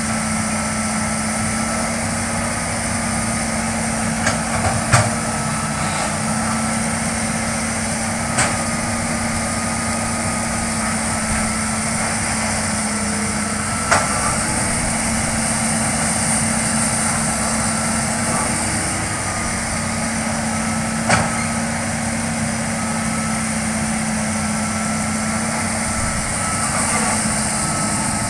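Hitachi hydraulic excavator's diesel engine running steadily under work, with a hum and a higher whine that comes and goes. A few sharp knocks or cracks sound over it: about four seconds in, twice near five seconds, then around eight, fourteen and twenty-one seconds.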